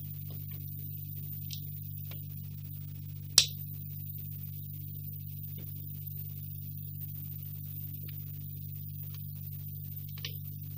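Soviet Electron 51TC-461D colour CRT television giving off a steady low hum while switched on. Its front-panel channel buttons make one sharp click about three and a half seconds in and a few faint clicks after.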